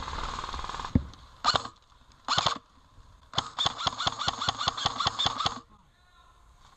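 Airsoft electric gun firing on full auto with a rapid, buzzing clatter: two short bursts, then a longer burst of about two seconds.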